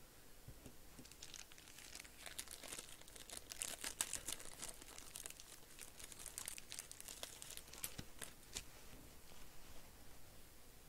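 Thin clear plastic card bag crinkling and crackling as it is handled and opened, in a run of short crisp crackles, the loudest about four seconds in.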